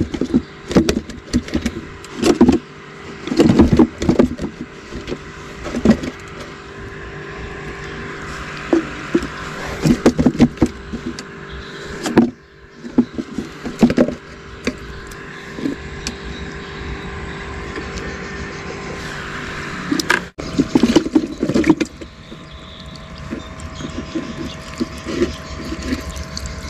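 A white plastic jerry can being tipped and handled to shake live mullet bait out into a hand: irregular knocks and rustles of the plastic, with water sloshing.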